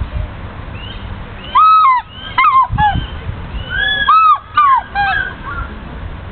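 African fish eagle calling: two bouts of loud, ringing yelps, starting about one and a half seconds in and again about four seconds in. Each bout has three or four notes, the later notes shorter and lower in pitch.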